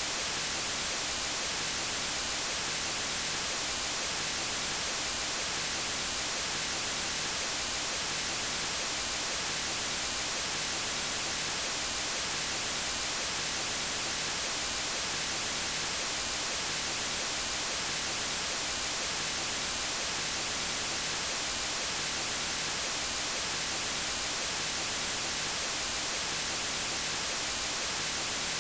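Steady, unchanging white noise: an even hiss with most of its energy in the high frequencies.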